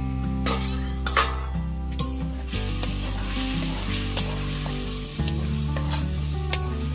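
Spiced curry paste sizzling in a black iron kadai while a metal ladle stirs and scrapes the pan, with occasional sharp clicks of the ladle on the iron. The sizzle swells in the middle, over low background music.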